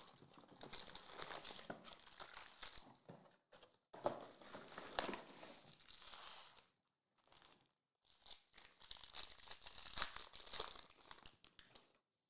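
Foil wrappers of Panini Prizm basketball card packs crinkling and tearing as the packs are handled and opened by hand, in several bursts with short pauses.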